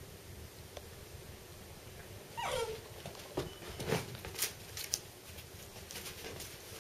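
Two-month-old Africanis puppy gives one short whimper that falls steeply in pitch about two and a half seconds in, followed by a few sharp clicks and knocks.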